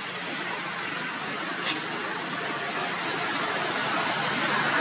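Steady rushing background noise that grows slowly louder, with a thin high steady whine through it and one short click a little under two seconds in.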